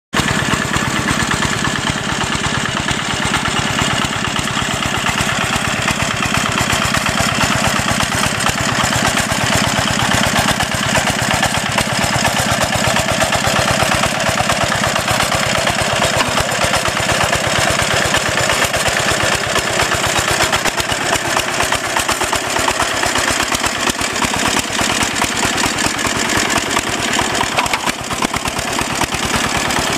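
Single-cylinder diesel engine of a two-wheel hand tractor running steadily with rapid, regular firing pulses as it pulls a moldboard plough through a wet rice paddy.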